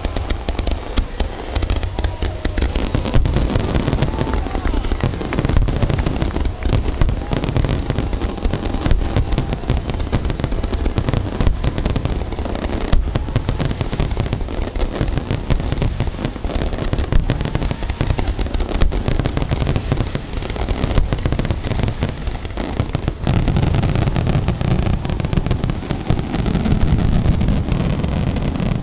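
Fireworks display with many aerial shells bursting in quick succession. The bangs and crackles overlap over a steady low rumble.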